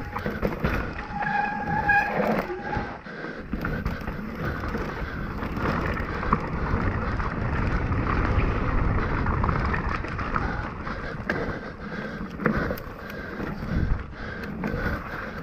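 Mountain bike riding down a rough dirt singletrack: the tyres roll over dirt and rocks and the bike rattles and knocks, with a brief high squeal about a second in.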